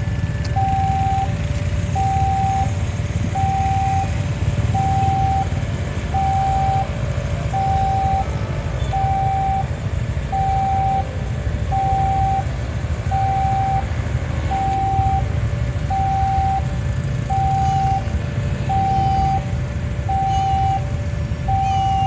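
Railway level-crossing warning alarm sounding: an electronic two-tone ding-dong, high note then low note, repeating steadily about once every second and a half over the low rumble of road traffic.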